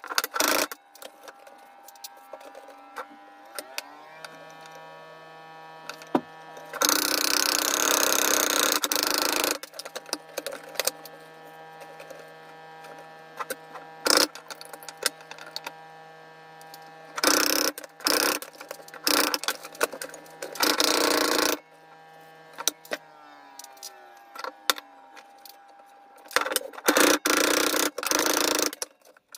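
A small electric power tool speeding up, running steadily with a hum, then slowing down, with several loud stretches of noise as it cuts into material. Clicks and knocks are scattered throughout.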